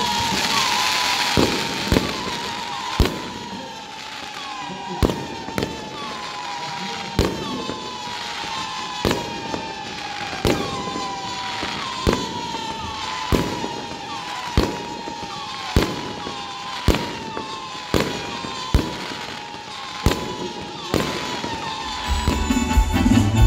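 Fireworks going off in a rapid string: rockets whistling, each whistle falling in pitch, with sharp bangs every second or so. Band music comes in near the end.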